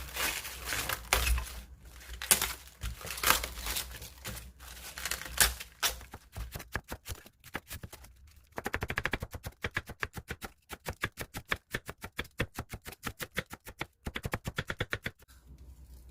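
Kitchen knife chopping on a cutting board: a few irregular heavier strikes, then about halfway through a fast, even run of chops, several a second.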